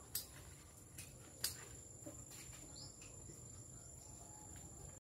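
Faint outdoor ambience: a steady high-pitched insect drone, with a few sharp clicks and snaps in the first two seconds and a short rising chirp a little before the middle. The sound cuts out just at the end.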